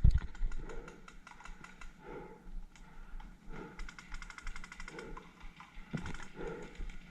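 Footsteps walking at an even pace, a soft thud about every second and a half, with light rapid clicking and rattling of carried gear, densest about four seconds in.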